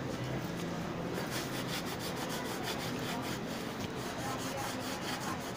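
Rapid, repeated rubbing strokes of a cloth pressed along the edge of a glued paper-covered pasteboard book cover, smoothing the cover down onto the board.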